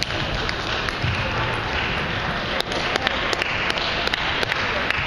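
Table tennis ball hits: sharp ticks of the ball off bats and table at irregular intervals, over the steady noise of a large hall.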